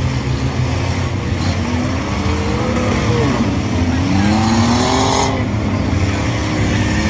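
Engines of a pack of old cars and pickups racing on a dirt oval: a steady low drone of several engines, with revving pitches rising and falling in the middle.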